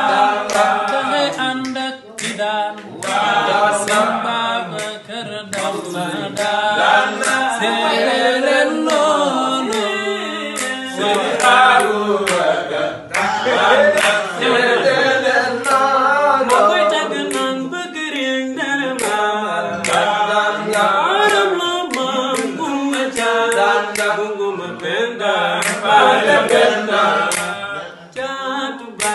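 Men singing a cappella in Wolof, one voice leading, with sharp percussive beats cutting through the singing.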